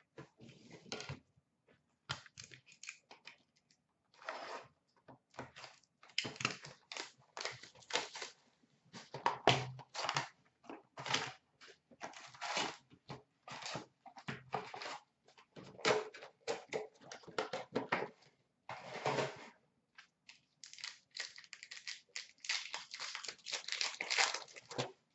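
Box of 2019-20 Upper Deck SP Authentic hockey cards opened by hand and its card pack wrappers torn open and crinkled: a run of short, irregular rustles and rips.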